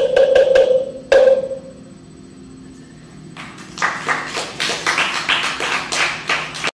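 A ringing, pitched percussion instrument struck in a fast run, ending with one last strike left to ring out. After a short pause, audience applause starts and cuts off suddenly near the end.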